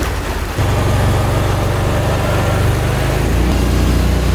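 Engine of a small motorised craft running steadily on the water, its hum dropping lower about three seconds in as the throttle eases.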